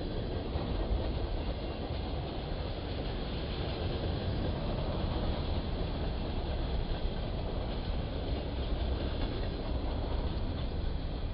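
A train rolling by, its wheels and cars on the rails making a steady, continuous rumble.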